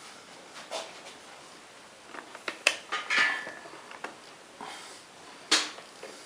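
Scattered clicks and metallic clinks from metal tools and parts being handled, with a short ringing clink about three seconds in and a sharp knock about five and a half seconds in. No motor is running.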